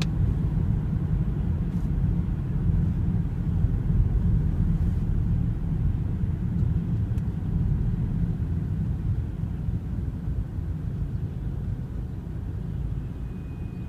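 BMW F30 320i on the move: a steady low road and drivetrain rumble that slowly gets quieter. Near the end, a thin high-pitched brake squeal starts and holds one steady pitch.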